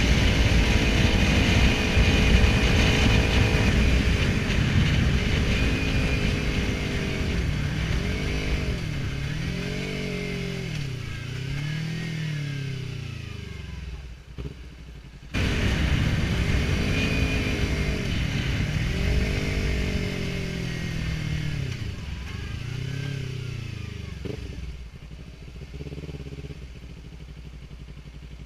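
Kawasaki Ninja 300's parallel-twin engine running, its pitch rising and falling in a series of revs, with a sudden break about halfway through.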